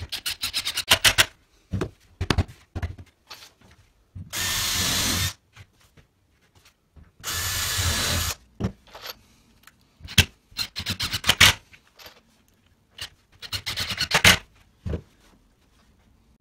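Cordless power tools driving screws into 18 mm melamine-faced chipboard: several short bursts of a Bosch impact driver's rapid hammering clicks, and twice a cordless drill's motor running steadily for about a second.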